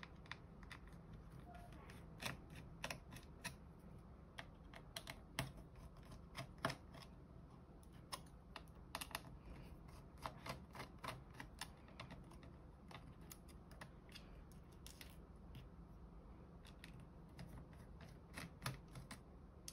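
Irregular light clicks and taps of fingers, tiny screws and small parts on an opened tablet's plastic frame and circuit board, with screws set down on a hard tabletop. The clicks come in quick clusters over a faint steady room hum.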